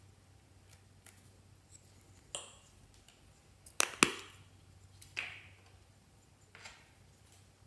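Small plastic toy container being handled, with a sharp double plastic click about four seconds in as its domed lid comes off. A few softer clicks come before and after.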